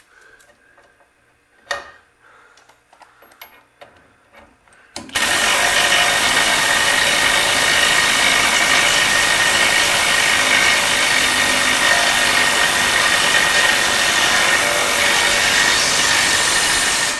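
Cordless drill with a socket running steadily for about twelve seconds, driving in a trailing-arm mounting bolt, and stopping abruptly. Before it starts, a couple of light knocks from handling metal parts.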